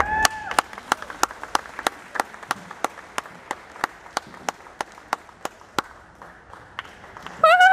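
Steady tongue clicks, about three a second, cueing a horse to load into a trailer; they stop about six seconds in. A short whistle comes at the start, and a loud whistle that rises and falls comes near the end.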